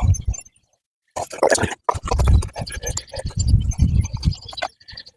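Paintbrush scratching across a metal cellar door in quick, uneven strokes, with rustling handling noise; the sound drops out completely for about half a second near the start.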